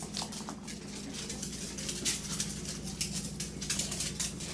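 Paws and claws of a poodle and her puppy scrabbling and clicking lightly and irregularly on a tile floor as they play, over a steady low hum.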